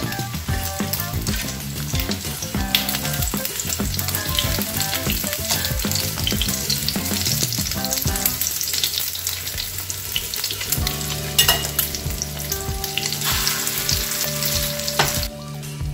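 Egg-battered squash blossoms sizzling as they fry in hot oil in a nonstick frying pan. The sizzling is steady and cuts off abruptly just before the end.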